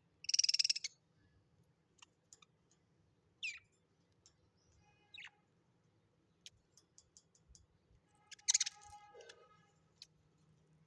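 A parrot giving scattered short calls: a loud harsh screech near the start, brief chirps around the middle, a quick run of soft clicks, and a louder call near the end that drops to a lower note.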